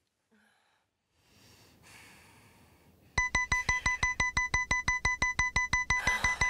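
Mobile phone sounding a rapid electronic beeping tone at one fixed pitch, about seven beeps a second, starting about three seconds in.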